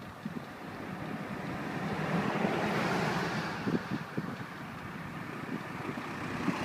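Road traffic noise: a steady low hum with a rushing swell about two to three seconds in that then fades, as a vehicle passes.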